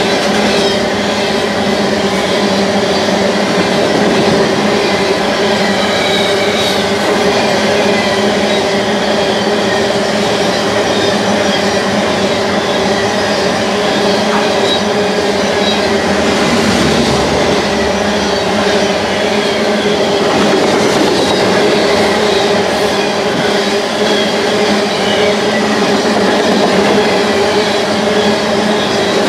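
Freight train's covered hopper cars rolling past at a steady speed: continuous wheel-on-rail rumble and clatter with a steady droning tone running through it.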